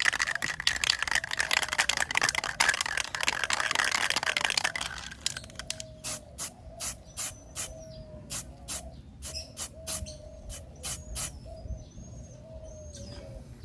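Aerosol spray can of primer spraying: a continuous hiss for about five seconds, then a string of short puffs, two or three a second, laying on light misting coats.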